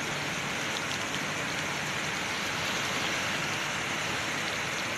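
Fast muddy floodwater rushing in a swollen stream: a steady, even rush of water.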